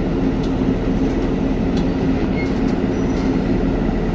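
Excavator running steadily with a continuous low engine rumble.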